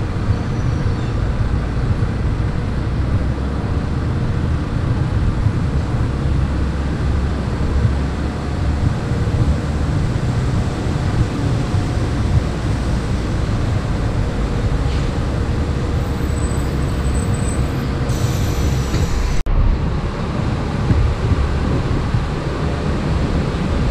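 Steady low rumble of city street traffic, with a faint steady hum and a momentary dropout about nineteen seconds in.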